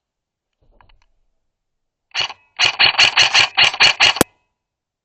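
Airsoft rifle firing: one shot, then a fast, uneven string of about ten sharp shots over a second and a half, ending in one crisp click.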